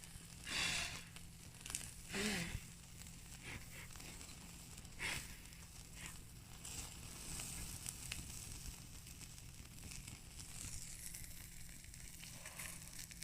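Fire in a fireplace crackling: irregular sharp pops and snaps, a few louder ones in the first half, then a denser run of small crackles.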